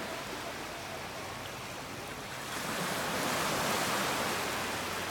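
Surf washing in on the shoreline: a steady hiss of water that swells about halfway through and eases off near the end.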